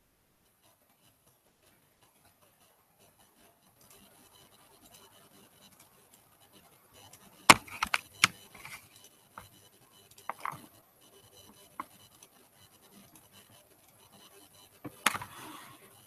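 Scattered sharp clicks and taps with faint scratching between them, from hands working a digital drawing setup: stylus on a graphics tablet, keys and mouse. The first few seconds are nearly quiet; a cluster of clicks comes about halfway, a few single ones follow, and another cluster comes near the end.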